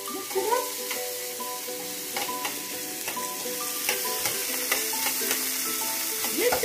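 Diced vegetables sizzling in a stainless steel pan as they are stirred and turned with metal tongs, the tongs clicking against the pan now and then over a steady frying hiss.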